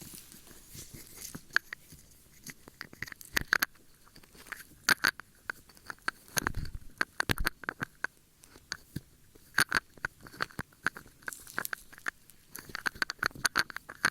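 Close-miked ear-cleaning ASMR: an ear-cleaning tool scraping and rubbing against the microphone, giving irregular crunchy crackles and clicks, with a few duller thumps about halfway through.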